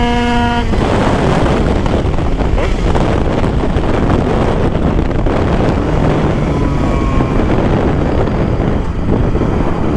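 Two-stroke Derbi moped engine with an 80cc Italkit cylinder, running flat out at a steady high pitch. Its tone stops abruptly under a second in and gives way to loud wind noise rushing over the microphone at speed.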